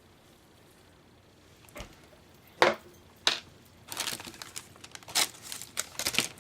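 Small decorative craft birds and their plastic packaging being handled: a soft knock and two sharp clicks, then about two seconds of crinkling.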